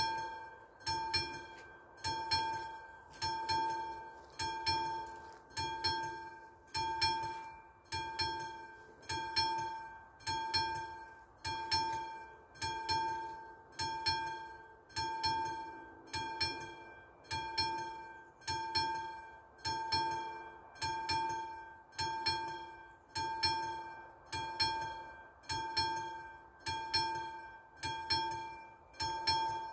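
Level crossing's classic mechanical warning bell struck by its hammer a little less than once a second. Each strike rings out and fades before the next. It sounds while the crossing is closed, warning that a train is coming.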